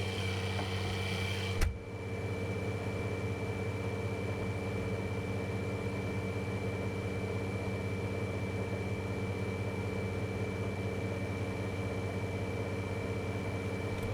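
Farm tractor engine idling steadily with its PTO out of gear, the baler drive disengaged, a low even hum with a thin steady high whine over it. A single sharp knock about two seconds in.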